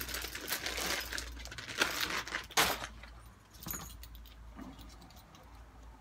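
Bunch of metal keys and small padlocks jangling and clinking in a plastic bag as it is handled, busiest in the first three seconds with a couple of louder clinks, then giving way to softer handling noise.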